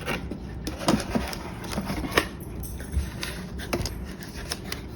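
Cardboard packaging being handled as an iPad is worked into a snug cardboard sleeve: scattered taps, scrapes and rustles, with a few sharper knocks.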